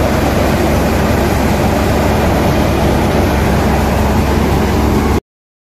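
Tractor-driven paddy thresher running: a loud, steady mechanical drone of the tractor engine and the spinning threshing drum, which cuts off suddenly near the end.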